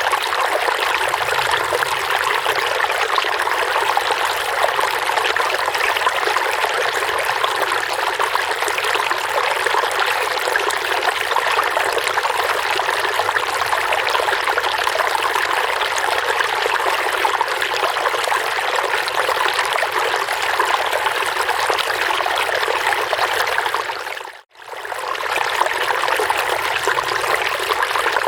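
Running water trickling and burbling steadily. About 24 s in it fades out for a moment and comes straight back.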